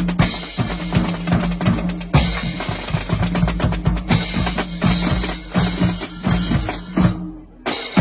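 Marching band drumline of snare drums, bass drums and crash cymbals playing a fast cadence. The playing breaks off briefly near the end, then comes back in with a loud hit.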